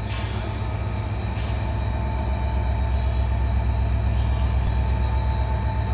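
WDP-4D diesel locomotive's 16-cylinder two-stroke EMD engine running under power with a deep, steady rumble and a steady whine on top, growing louder over the first few seconds as it accelerates. Two brief hisses, near the start and about a second and a half in.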